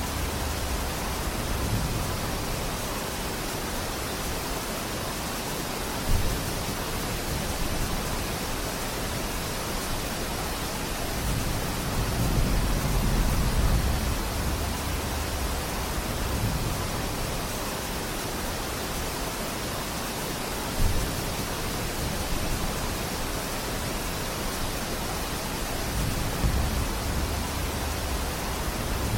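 Steady rain falling in a forest, an even hiss with low rumbling swells that rise and fade every several seconds. Two brief louder knocks stand out, about six seconds in and again near twenty-one seconds.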